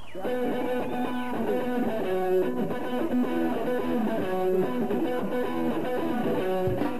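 A live band playing, led by electric guitar with clear repeated notes, and the music starting abruptly right at the beginning.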